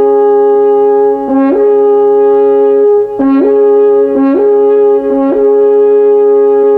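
Brass music, horn-like, of loud, long held notes that change pitch every second or so, in the manner of a fanfare.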